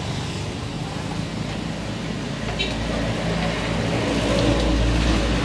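A steady low engine rumble that grows louder over the second half, with a light metal clink about halfway through.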